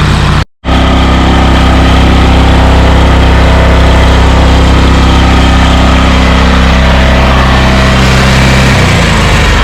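A large engine running steadily at a low, even pitch. The sound cuts out completely for a moment about half a second in, and the engine's note shifts near the end.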